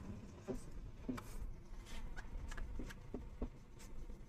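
Felt-tip marker writing on a whiteboard: a string of short, irregular scratchy strokes and light taps as a word is written, underlined and a closing mark drawn.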